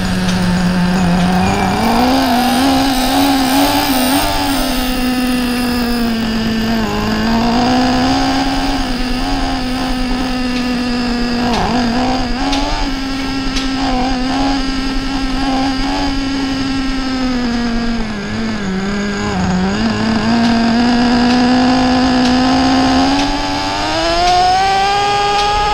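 Two-stroke nitro engine of a Traxxas Revo 4x4 RC truck running at high revs, its whine rising and falling with the throttle and climbing steadily near the end.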